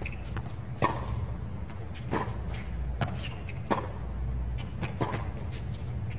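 A tennis rally: sharp pops of the ball struck by rackets about once a second, with softer ball bounces between, over a low steady stadium rumble.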